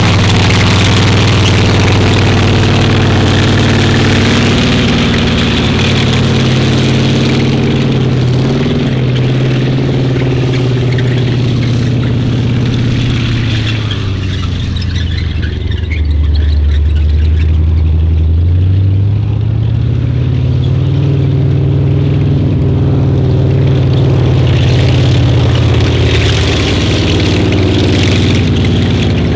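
M3A1 Stuart light tank running across a field, its engine note steady, then dropping in revs for a few seconds about halfway through before climbing again.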